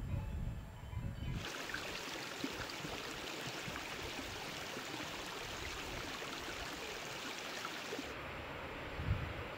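Rushing mountain stream: an even wash of water noise that starts abruptly about a second and a half in. Near the end its hiss thins and low rumbles return.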